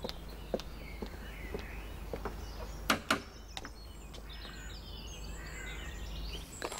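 Birds chirping and twittering over a steady low outdoor background, with scattered light footsteps and two sharp clicks close together about three seconds in, the loudest sounds.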